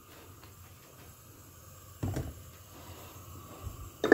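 Kitchen handling sounds as a steel bowl of water is moved onto a gas stove: a dull knock about halfway, then a sharp metal clink with a brief ring at the very end.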